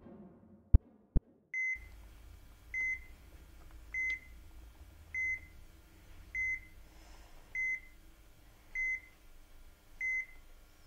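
A heartbeat sound, a pair of loud thumps. Then a hospital heart monitor beeps steadily, one short high beep about every 1.2 seconds, in time with a slow pulse.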